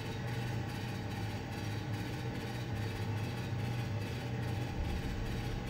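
Train sound effect running as a steady low rumble.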